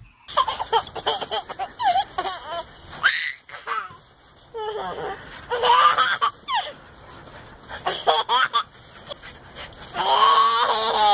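A baby laughing in several bouts with short pauses between, the longest and loudest bout near the end.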